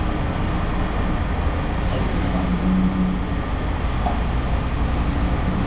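Engine of heavy scrap-yard machinery running steadily with a low rumble.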